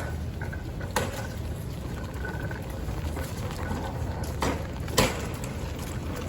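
Steady rain on a city street, with water running and splashing, broken by sharp taps about a second in and twice a little after four and a half seconds, the last one the loudest.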